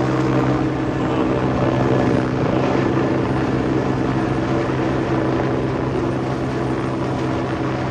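Helicopter in flight overhead, its rotor and engine making a steady drone.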